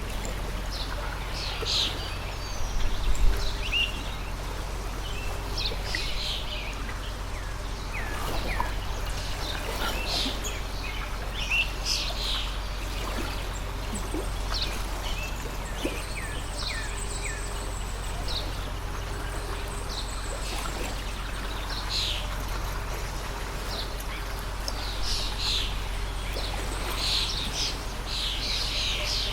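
Small birds chirping many times in short calls, over the steady rush of a flowing stream.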